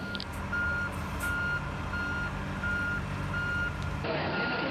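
Electronic warning beeper sounding a steady, evenly spaced beep, roughly three beeps every two seconds, over the low steady hum of an engine running.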